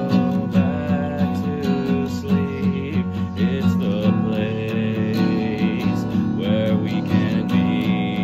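Acoustic guitar strummed in a steady rhythm, chords ringing under regular strokes.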